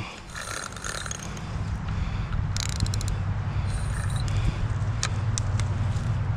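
Fishing reel being cranked to reel in a hooked fish: a steady mechanical drone from the turning reel, with a quick run of sharp clicks about two and a half seconds in and a few single clicks near the end.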